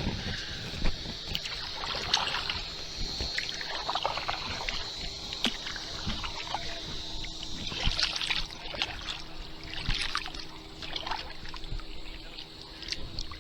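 Kayak paddling on calm water: the paddle dips and drips, making irregular small splashes and trickles over a low rumble.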